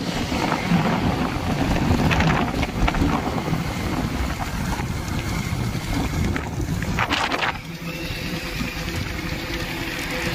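Wind buffeting the microphone over the rumble of a vehicle riding along a road in traffic, with a strong gust a little past two-thirds of the way in, after which the noise eases slightly.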